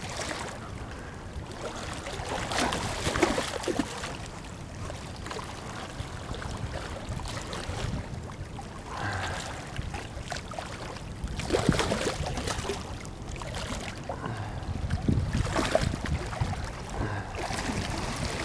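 Rushing water from a dam's tailwater with wind buffeting the microphone. It swells louder a few times, around three seconds in and again around twelve and fifteen seconds.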